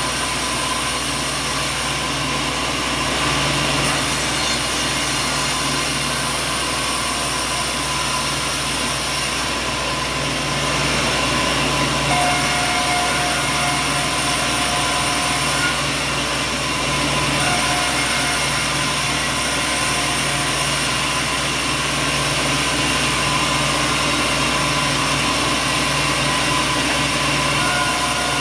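Sawmill machinery running: a loud, steady mechanical din with a constant hum.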